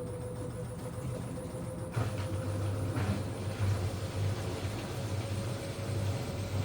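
LG F1292MD front-loading washing machine on its spin cycle: a steady throbbing hum from the spinning drum, with a faint squeak.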